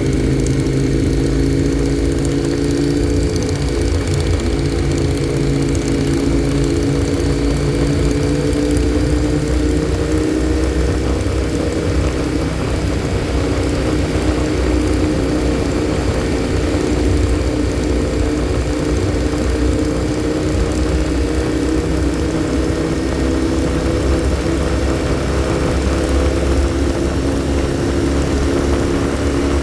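Motorcycle engine running steadily at cruising speed, its note drifting only slightly, over a constant low rumble of wind and road noise.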